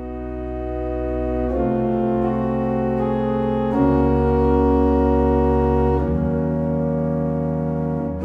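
Organ playing slow, held chords over deep bass notes, the chord changing about every two seconds.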